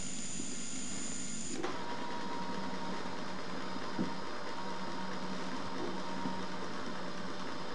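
Electric motors of a LEGO gantry robot running as it moves its head across the game board: a steady mechanical whine that drops to a lower tone about one and a half seconds in, with a single click about four seconds in.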